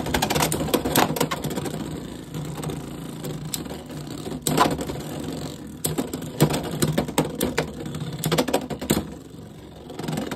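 Two Beyblade X spinning tops, Hasbro's Helm Knight 3-80 Needle and Dagger Dran, battling in a clear plastic stadium. Their spinning on the plastic floor makes a steady whirring hum, with many sharp clacks as they hit each other and the stadium wall. It goes quieter in the last second, as the battle winds down.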